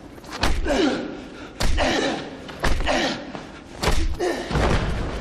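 Punches and kicks landing in a fistfight: five heavy thuds about a second apart, each followed by a man's grunt.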